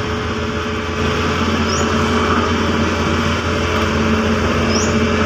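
Caterpillar CS533E vibratory roller's diesel engine running steadily as the machine drives over the gravel base, a little louder from about a second in.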